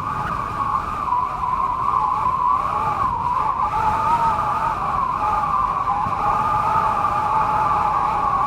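Wind sound effect: a steady whistling tone that wavers slightly in pitch, over a low rush of noise.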